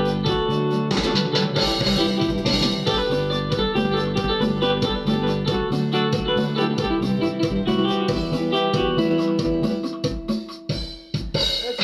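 Yamaha PSR-E463 keyboard playing a programmed accompaniment style: a plucked guitar voice carries the melody over a steady drum beat. The music thins out briefly near the end, then comes back in.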